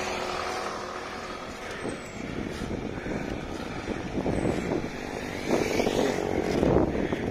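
Motor traffic going past on the road, with one vehicle getting louder about five and a half seconds in.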